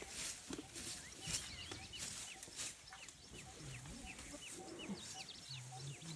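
Small birds calling in a string of short, high, falling chirps, about two a second, with scattered rustling noises and a brief low hum twice in the second half.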